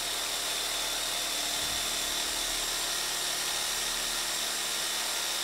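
Power drill running steadily with a high, constant whine while driving a screw into metal siding.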